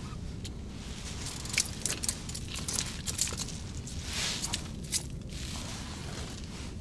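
Rustling and small crackling clicks of a padded jacket and hands handling a freshly caught fish, over a steady low rumble.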